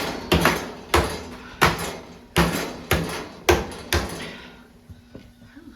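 Metal stovepipe of a wood stove struck repeatedly, about nine sharp knocks at roughly two a second, each ringing briefly, stopping about four seconds in.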